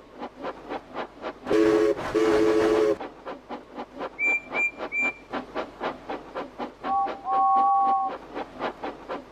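Steam locomotive sound effects: steady rapid chuffing throughout, with a long low whistle blown twice near the start, three short high peeps in the middle, and a two-note whistle near the end.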